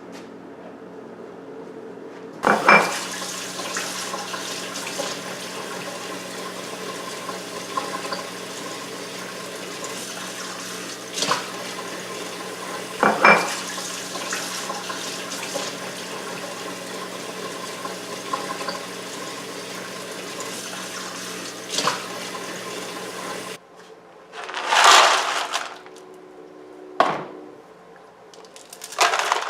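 Steady rush of running water that starts abruptly and cuts off about twenty seconds later, with a few knocks during it, followed by two short louder rushes near the end.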